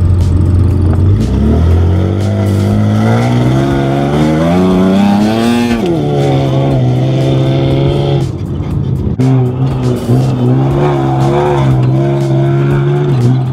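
Off-road race truck's engine accelerating hard, its pitch climbing steadily for about five seconds, then dropping suddenly and holding a steady drone. The drone eases briefly past the middle, then holds again.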